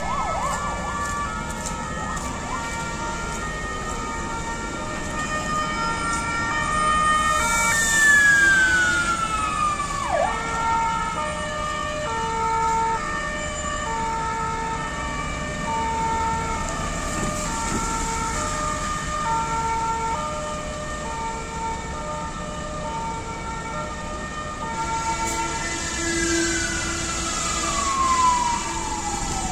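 Two fire engines' two-tone sirens alternating high and low over street traffic, with more than one siren sounding at once. A siren sweeps down in pitch about eight seconds in, alongside a brief loud burst, and another falls steadily near the end.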